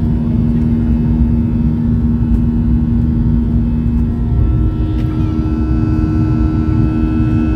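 Jet airliner cabin noise during the climb after takeoff: the steady, loud rumble of the engines and airflow, with a steady engine hum over it. A second, slightly higher hum comes in about halfway through.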